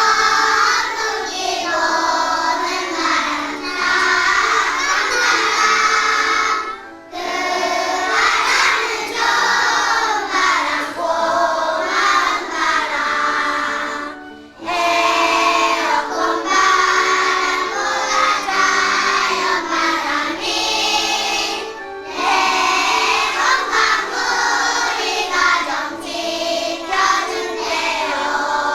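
A song sung by a children's choir with musical accompaniment, in phrases broken by short pauses about every seven seconds.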